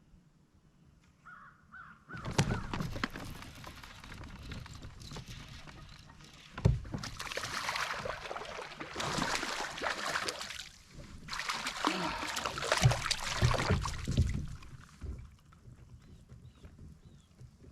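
Water splashing and thrashing with knocks against a kayak as a bass is fought and landed alongside, in two long loud bouts.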